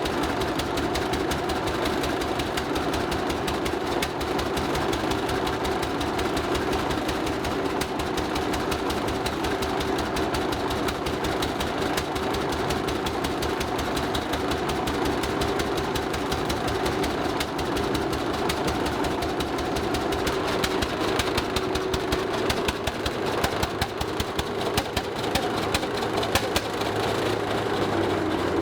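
Engine of an early Hart-Parr kerosene tractor running on gasoline, with steady, rapid firing strokes. From about two-thirds of the way in, the firing turns uneven and spiky as the engine starves: its fuel has been cut off at the fuel bowl, and it is running down on what is left in the carburetor bowl.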